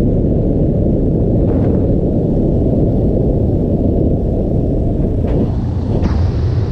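Airflow buffeting the camera microphone in flight, heard as a loud, dense low rumble with no engine note. A brighter rushing hiss joins about five to six seconds in as the wing banks steeply and the airspeed rises.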